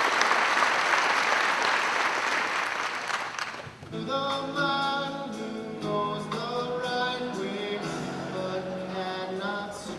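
Applause for the first three to four seconds, then an abrupt change to group singing, several voices holding and moving between sustained notes.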